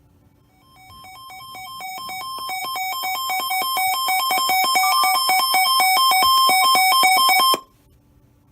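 Weather radio receiver's electronic alert alarm: a lower and a higher beep alternating rapidly in a warble, growing steadily louder for several seconds and then cutting off suddenly. It signals that a new warning broadcast is coming in.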